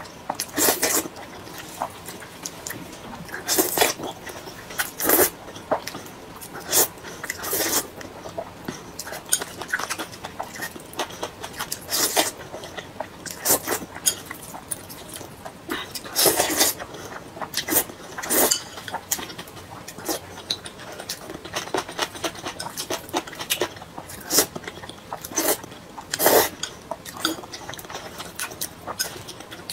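A woman slurping and chewing a mouthful of hot dry noodles, with chopsticks clicking against the plate: a run of irregular sharp slurps and smacks, about a second apart.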